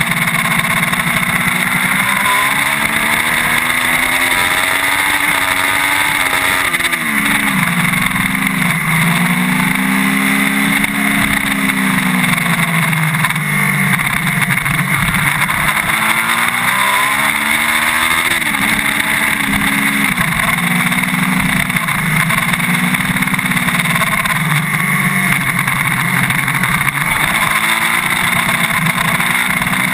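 Triumph sport motorcycle engine at racing speed, heard onboard. The revs climb in long rising sweeps and drop back sharply again and again through the corners, over a constant rush of wind.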